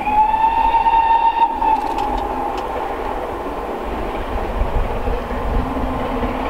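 GWR Castle class 4-6-0 No. 7029 'Clun Castle' sounds its whistle: one blast of about a second and a half that sags slightly in pitch as it dies away. Then comes the rumble of the steam locomotive working hard as it approaches.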